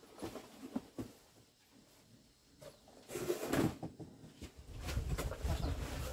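Handling noises: scattered small knocks and clicks, a louder rustle a little after three seconds, and a denser stretch of low rumbling and clicking near the end.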